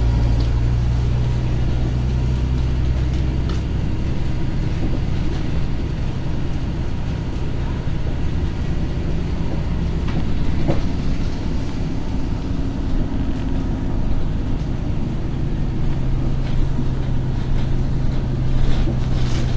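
Inside a LiAZ-5292.22 city bus on the move: a steady low engine hum under road and tyre noise, with a few clicks and rattles from the cabin.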